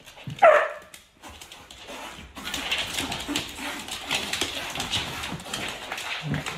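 A dog gives one short, high yelp that falls in pitch about half a second in. From a couple of seconds in, a steady scuffling, rustling noise with small clicks follows.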